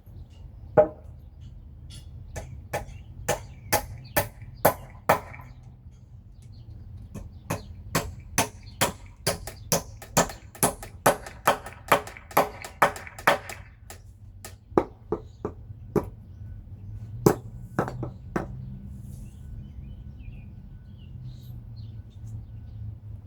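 A hand tool striking hard material again and again: runs of sharp knocks at about two a second, with short pauses between runs, ending about three-quarters of the way through.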